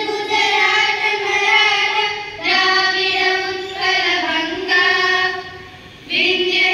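Schoolchildren singing together in unison, holding long notes in phrases of two to three seconds, with a brief drop in level about six seconds in.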